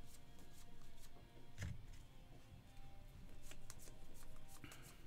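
Panini Score football trading cards being handled and flicked through by hand: a run of quick, crisp clicks and rustles of card stock, with one soft thump about a second and a half in.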